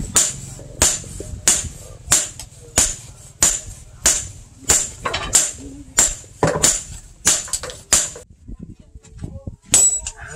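Hammer blows on red-hot chainsaw-bar steel on a steel post anvil as a billhook blade is forged: a steady rhythm of ringing metal strikes about every two-thirds of a second, stopping about eight seconds in, with one or two more strikes near the end.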